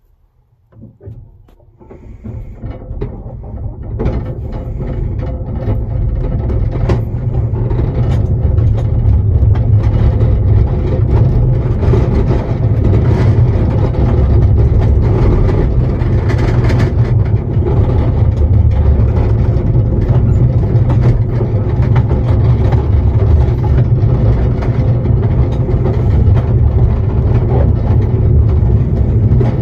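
Ride-on miniature railway train running along its track, heard from the passenger coach behind the locomotive: a steady low rumble with frequent clicks. It is quiet at first and builds up over the first several seconds, then holds steady.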